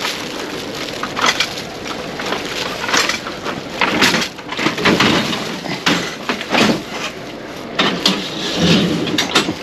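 Emergency foil (rescue) blanket crinkling and crackling as gloved hands tuck it around a patient on a stretcher, in irregular crackles.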